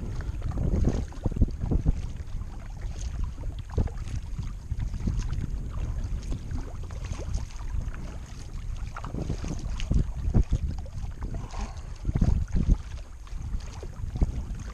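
Kayak paddle strokes dipping and splashing in the water, in irregular surges, with wind rumbling on the microphone.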